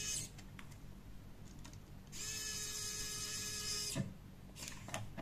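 Small electric screwdriver driving a screw into a robot's sensor bracket: its motor whine stops just after the start, then runs again for about two seconds from about two seconds in. It ends in a click near four seconds, followed by a couple of faint clicks.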